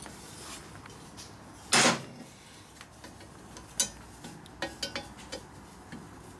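Steel hand tool clinking and scraping against the dented end of a motorcycle exhaust pipe as its jaw is set inside the pipe mouth to straighten the dent, which is suspected of causing an exhaust leak. One louder, longer clatter about two seconds in, then a few sharp clicks.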